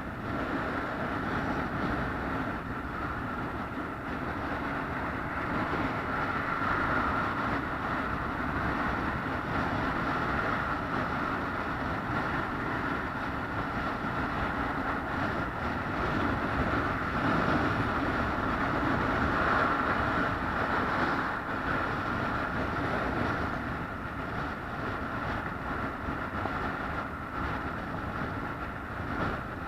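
Steady drone of a moving vehicle, with a constant whine running through it and no sudden events.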